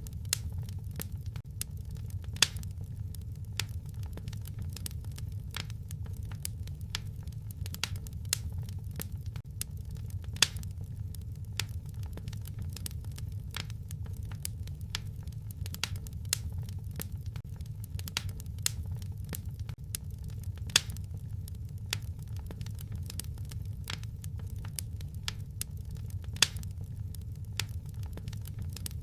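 Wood fire crackling in a fireplace: a steady low rumble of flame under irregular small snaps, with a few louder pops scattered through.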